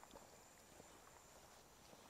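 Faint footsteps of a person walking on a wet street: a few soft, irregular taps over a quiet outdoor hush.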